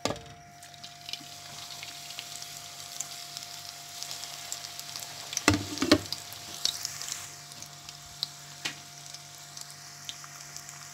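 Samosas deep-frying in hot ghee in an aluminium pot: a steady sizzle with scattered pops and crackles. A couple of louder knocks come about halfway through as more samosas go into the pot.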